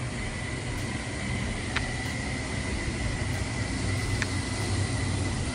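Steady low mechanical hum with an even wash of noise and a thin, steady high whine, with two faint clicks about two and four seconds in.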